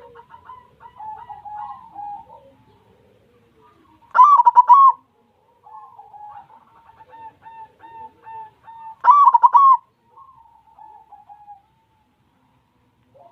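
White zebra dove (perkutut) cooing: soft, rolling coos throughout, with two much louder, rapid trilled phrases about five seconds apart.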